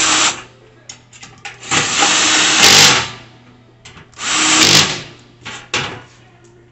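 Power drill running in bursts, driving screws: two main runs, the first about a second and a half long and the second shorter, with brief blips around them.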